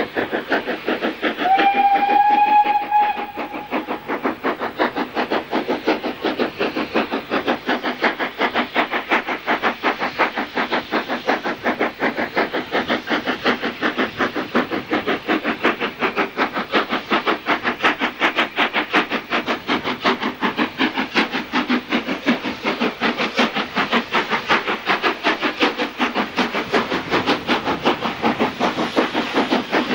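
Steam locomotive working hard as it approaches, its exhaust a fast, even chuffing of about four beats a second. About a second and a half in, it sounds its whistle once, a single note lasting about a second and a half; this is the loudest sound.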